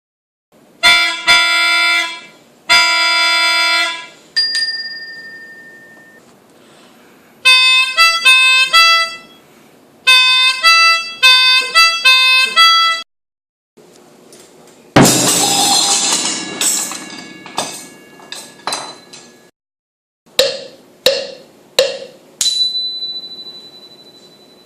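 A string of separate musical sound effects: two held chords, then a quick run of short pitched notes, a loud crash about fifteen seconds in that dies away slowly, and a few short hits ending on one ringing tone.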